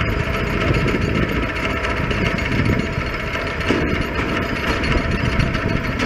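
Vibratory pile hammer shaking a large steel pipe pile as it extracts it, a loud, steady mechanical vibrating noise that holds without a break.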